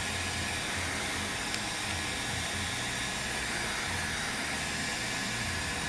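Heat gun running with a steady hiss of blowing air, softening the adhesive under an iPad mini's digitizer glass.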